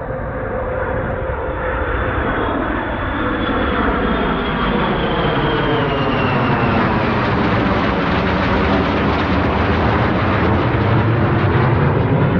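Jet engine roar from a formation of four fighter jets passing overhead, growing louder, with a thin whine that falls in pitch as they go by.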